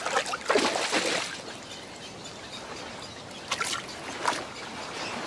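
Shallow water splashing as a wading egret stirs it and strikes at prey. A run of splashes and trickling comes in the first second, then two short splashes at about three and a half and four seconds in.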